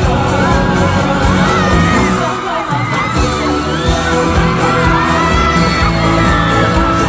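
Live pop concert: a male singer's amplified voice over a band with a steady beat. The low beat drops out briefly about two and a half seconds in.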